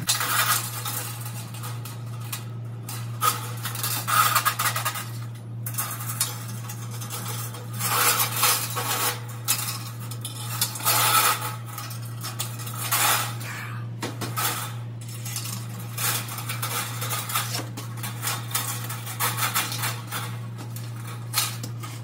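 Coiled heating-element wire clinking and rattling against a GE dryer's metal heater housing and its ceramic insulators as the element is restrung by hand, in irregular runs of small metallic clicks and scrapes over a steady low hum.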